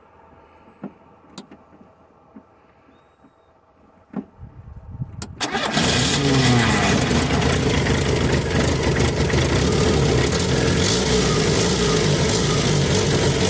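A few light clicks, then the Volkswagen Parati's AP 1.8 four-cylinder engine is cranked by the starter about four seconds in and catches, its revs flaring briefly before settling into a steady run. The engine has just had a loose nut tightened after it made a strange noise and threw sparks.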